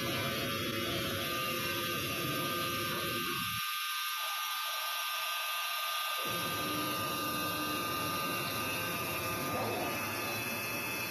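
Wood-Mizer LT300 band sawmill running: a steady mechanical whine over dense noise, with the low rumble dropping out for a couple of seconds near the middle.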